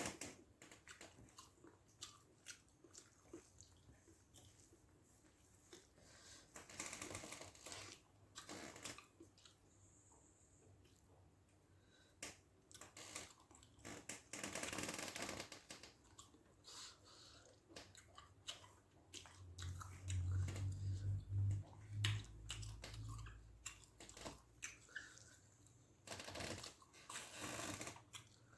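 Close-up eating sounds of fish gravy, egg and rice: wet chewing and mouth noises with scattered small clicks and rustles. A low hum runs for about four seconds past the middle and is the loudest part.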